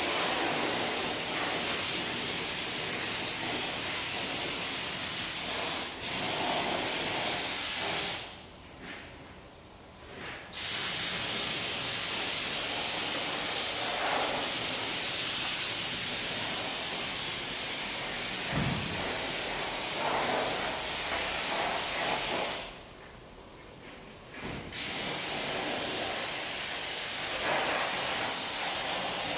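Steady high-pressure spraying hiss that stops sharply twice for about two seconds each time, then resumes.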